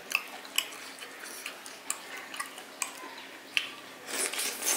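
Close-up eating sounds: irregular wet clicks and lip smacks of chewing, with a longer hissy sucking or slurping sound near the end.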